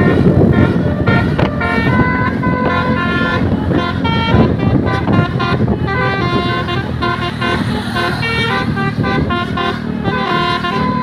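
Bus telolet horns playing quick melodic tunes, several notes at once that step from pitch to pitch every fraction of a second, over the low rumble of a running bus engine.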